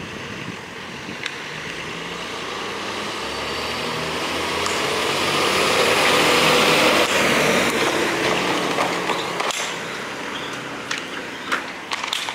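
A road vehicle drives past, its engine and tyre noise rising to a peak about six seconds in and then fading away, with a few sharp clicks near the end.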